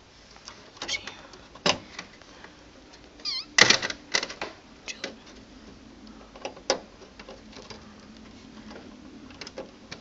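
Scattered clicks, taps and knocks of hands working front-panel connector wires and cables inside a metal PC case, the loudest knock about a third of the way in.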